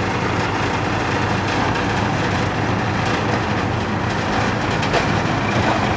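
A heavy engine running steadily with a low hum and a busy rattle, with a sharper knock about five seconds in.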